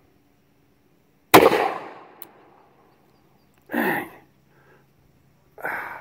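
A single .41 Magnum shot from a Taurus 415 revolver with a 2-inch ported barrel, a sharp report about a second in with a short ringing tail. Then two short vocal outbursts from the shooter.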